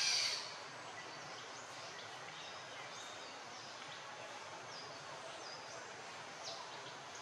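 Forest ambience: a steady hiss with many short, high chirps that fall in pitch, from birds or insects. It opens with a brief loud, noisy burst lasting about half a second.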